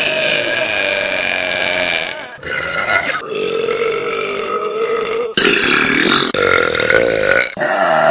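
Several long, loud human burps one after another, each lasting about two seconds, with short breaks between them.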